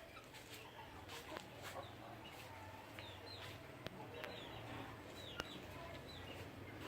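Chickens calling faintly: a scattering of short, high chirps that fall in pitch, with a few sharp clicks among them.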